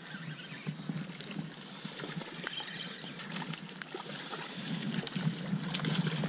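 A hooked trout splashing at the surface of a shallow creek as it is played in, over light rain falling on the water. Scattered small splashes and ticks, busier and a little louder toward the end.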